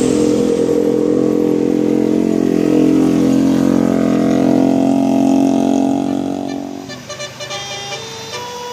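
A large bus close by, its engine making a loud steady drone that dies away about seven seconds in. A tune of short notes at changing pitches then begins.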